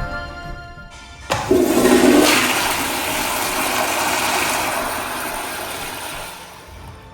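Commercial restroom flush valve flushing: a sudden loud rush of water about a second in that slowly dies away over the next five seconds.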